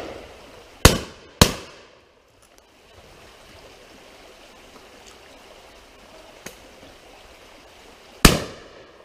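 Laurona double-barrelled shotgun firing: two shots about half a second apart about a second in, then a single shot near the end, each with a short echoing tail.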